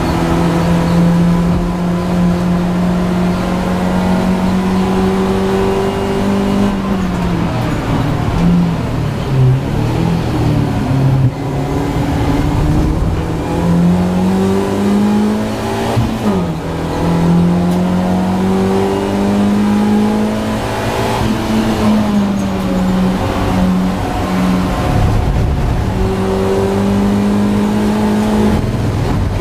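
BMW Compact race car's engine at racing revs, heard from inside the stripped cabin. The engine note holds steady at first, falls and jumps in steps about eight to eleven seconds in, then climbs and drops several more times as the car works through the lap.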